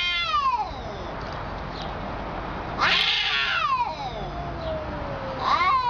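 A cat meowing in long, drawn-out calls that slide down in pitch: one fading just after the start, a longer one about three seconds in that trails off over about two seconds, and another beginning near the end.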